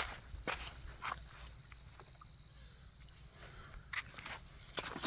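A few scattered footsteps on the ground, over a steady high-pitched insect trill that stops near the end.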